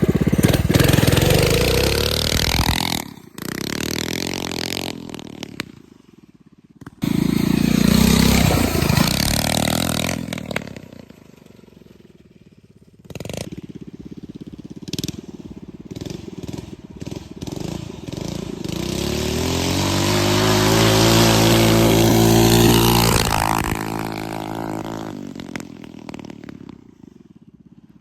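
Single-cylinder 6.5 hp 200cc go-kart engine running as the kart is ridden, heard in several short cut-together stretches; near the end it revs up and then eases off.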